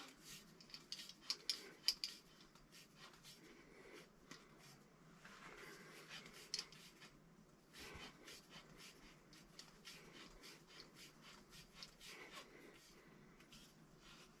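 Faint clicking and scraping of a tubing cutter being turned around a copper pipe to cut it, with a few sharper ticks in the first couple of seconds.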